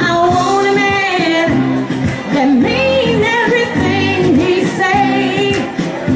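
Karaoke singing: one voice holding and sliding through long, bending notes without clear words over a recorded backing track.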